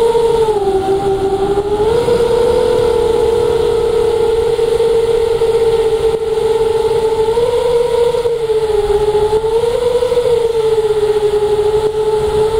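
An RC plane's motor and propeller whine steadily, heard through the onboard action camera, over a rushing of wind. The pitch drops about half a second in and comes back up about two seconds in. It then wavers up and down a little more as the throttle changes.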